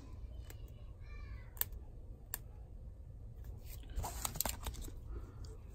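Quiet handling of a baseball card in a rigid plastic top loader: a few sharp light plastic clicks and soft rustles as the card is worked out of its holder.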